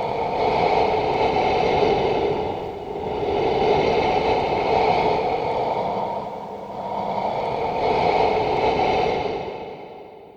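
Ghost-breathing sound effect: slow, breathy swells of hissing noise, about three long breaths in and out, fading away near the end.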